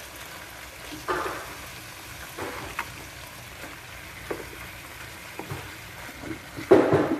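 Chopped cabbage, bottle gourd and squash sizzling steadily in hot oil in an aluminium pot. Several short bursts of rustling and light clunks come from the cabbage leaves being pressed into the pot by hand, the loudest near the end.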